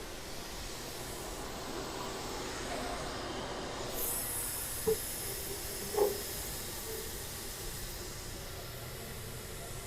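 CNC router's axis drive jogging the spindle and tool into the tool-rack pocket, a steady hiss with a brighter high hiss coming in about four seconds in. Two short light knocks follow about a second apart.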